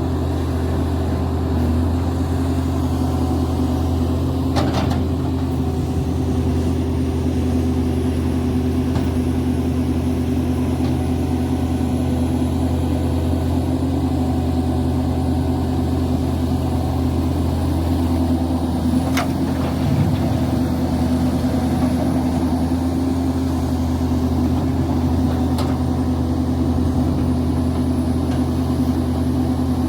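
Link-Belt hydraulic excavator's diesel engine running at a steady speed, a constant low hum, with a few brief clicks or knocks from the machine.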